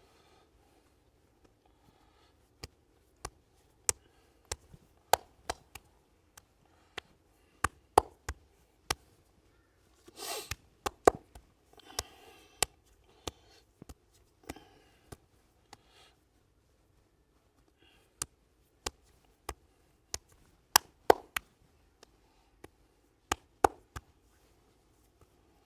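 Hands giving a head massage: a string of sharp, irregular taps and clicks, one or two a second, with short bursts of hands rubbing over hair and skin about ten and twelve seconds in.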